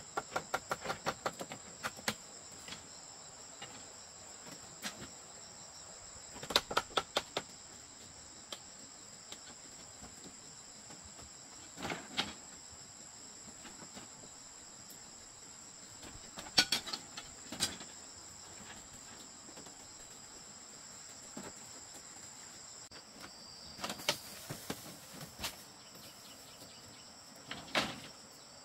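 Insects, typical of crickets, shrilling steadily at two high pitches. Over them come scattered runs of sharp knocks and taps, the loudest a little past the middle.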